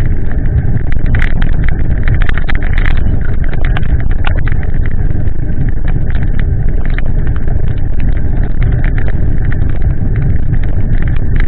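Wind buffeting the microphone of a handlebar-mounted camera on a moving bicycle: a loud, steady rumble, with scattered sharp clicks and taps throughout.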